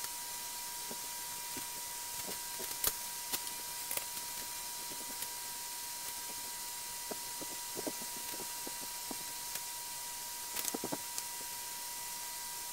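Paintbrush stroking and dabbing primer onto a small-block Chevy engine block: faint, scattered short brush scrapes and a few light taps. Under it, a steady hiss with a thin constant high tone.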